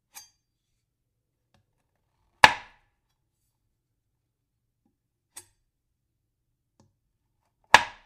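Knife chopping into wood: two loud, sharp chops about five seconds apart, each a little after a faint light tap.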